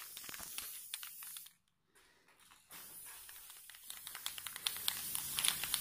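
Aerosol spray paint can hissing, stopping about a second and a half in and starting again a second later, louder near the end, with crackly handling noise throughout.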